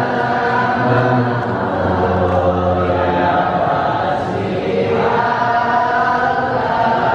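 A group of voices chanting together in unison, Islamic devotional chanting in long held notes that shift pitch every second or two.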